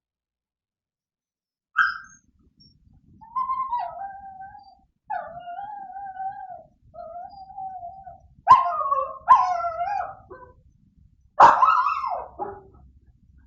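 Dog whining in long wavering cries, with a sharp yelp near the start and three loud barks in the second half.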